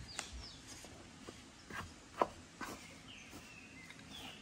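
Wooden spoon stirring crumbly cassava-starch dough in an aluminium bowl, with a handful of short knocks. The loudest comes about two seconds in. Faint bird chirps sound in the background.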